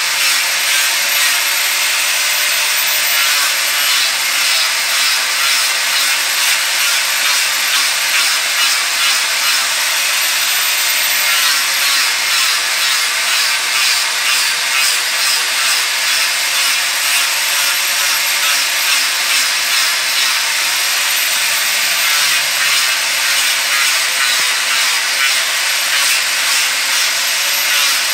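Angle grinder running with its abrasive disc grinding into the wood of a spoon blank, a steady rasping grind with a fluttering level. The motor's high whine climbs briefly about three times.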